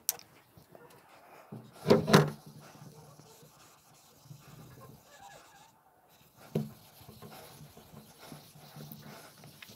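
Whiteboard duster rubbing back and forth across a whiteboard, wiping off marker writing in a run of uneven strokes, with two louder strokes about two seconds in.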